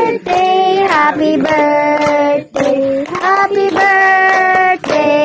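Voices singing together, a child's and women's voices, in long held notes with short breaks between phrases.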